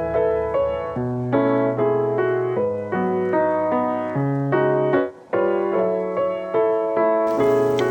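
Background music: piano playing gentle chords and melody notes in a steady rhythm, with a short break about five seconds in and a brighter high layer coming in near the end.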